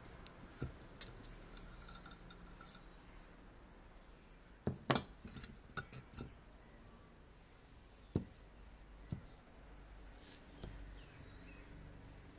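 Rusty metal parts of a kerosene pressure lantern clinking and knocking as they are lifted off the fuel tank and set down: scattered sharp taps, a quick cluster about five seconds in and another single knock around eight seconds.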